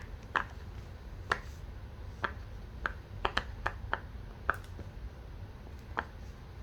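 Silicone bubbles of a crab-shaped Pop It fidget toy being pressed through one after another: a string of short, sharp pops, one or two a second, coming quicker around the middle.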